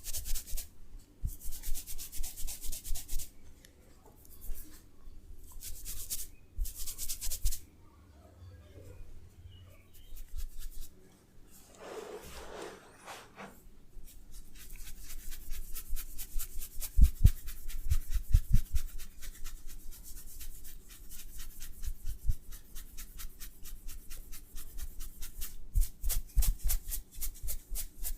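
Massage: hands rubbing quickly and rhythmically over skin or hair, several strokes a second, in short bursts for the first several seconds and then almost without a break. A few dull thumps come in the second half.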